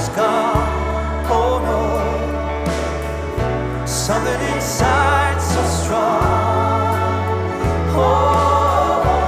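Background music: a song with a solo voice singing over held bass notes that change about once a second.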